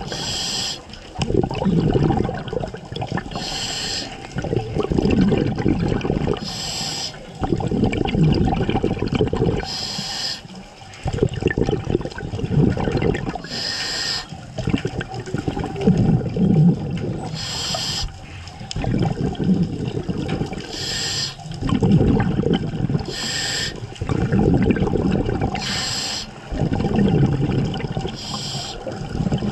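Scuba diver breathing through a regulator underwater. Each inhale is a short hiss, and each exhale is a long, loud burst of bubbling, in a steady cycle about every three to four seconds.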